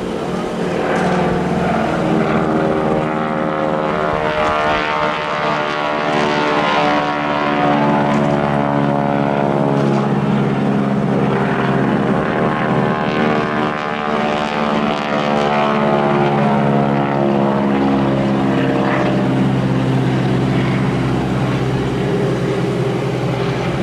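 Boeing Stearman biplanes' radial piston engines and propellers running hard on a display pass, the engine note falling in pitch as they fly by.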